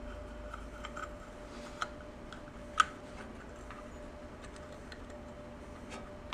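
Small metallic clicks and ticks of a screw being backed out and handled at the breaker-points cover of a Kohler K321 engine, with one sharper click near the middle.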